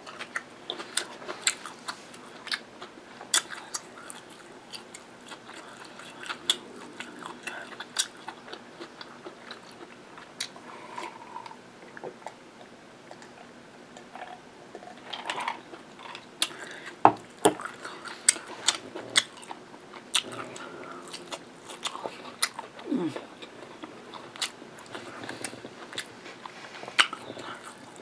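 Close-miked eating sounds: wet chewing, lip smacks and sharp mouth clicks as a person eats meat curry and rice by hand. A short falling hum comes about two-thirds of the way in.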